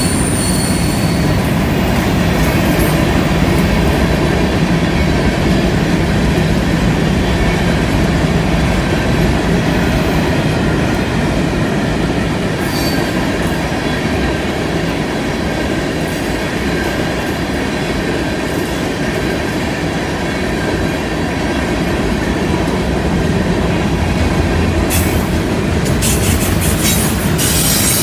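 Freight cars (tank cars and covered hoppers) rolling past on a curve: a loud, steady rumble and clatter of steel wheels on rail. Brief high-pitched wheel squeals at the very start and about halfway through, from wheel flanges grinding against the rail on the curve, and a run of sharp clanks near the end.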